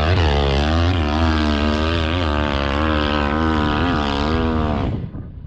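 Dirt bike engine revving hard on a climb, its pitch rising and falling repeatedly as the throttle works. It cuts off suddenly about five seconds in, leaving a duller, quieter rush.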